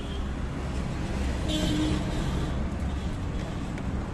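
Outdoor street background noise: a steady low rumble of passing traffic, with a brief higher-pitched sound about one and a half seconds in.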